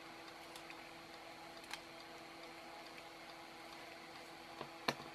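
Side cutters snipping the excess component leads off a soldered circuit board: a few sharp clicks, one about two seconds in and two near the end, the last the loudest, over a faint steady ticking.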